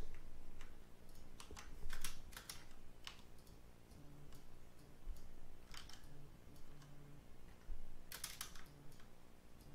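Computer keyboard keys and mouse buttons clicking in short, scattered runs, with gaps of a second or more between them.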